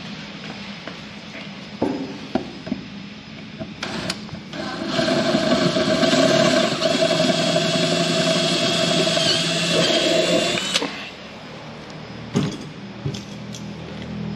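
DeWalt cordless drill drilling into a metal bracket: the motor runs steadily for about six seconds, starting about five seconds in and stopping sharply, its whine wavering briefly near the end as the bit cuts. Light clicks and handling knocks come before and after.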